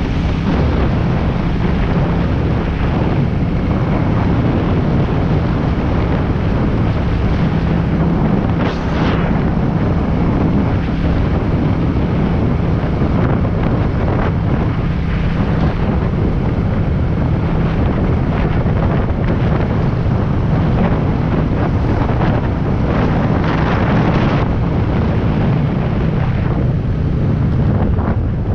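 Wind rushing over an action-camera microphone on a moving motorcycle, with a couple of brief gusts, over the steady low hum of a Royal Enfield Meteor 350's single-cylinder engine.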